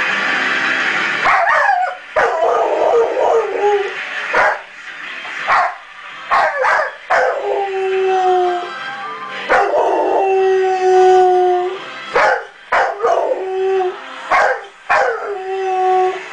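A one-year-old male Rottweiler howling along to music from the television: about six long held howls, each a second or two long, with short sharp yips between them.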